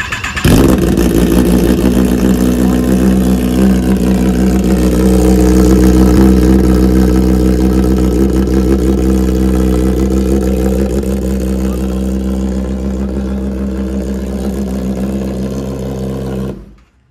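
Kawasaki ZX-10R inline-four engine on an Austin Racing slip-on exhaust fires up about half a second in, then idles loudly and steadily at an even pitch. It is switched off suddenly just before the end.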